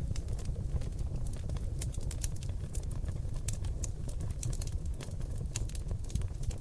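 Seasoned oak logs burning in a fireplace, crackling and popping in many sharp, irregular clicks over a steady low rumble of the fire.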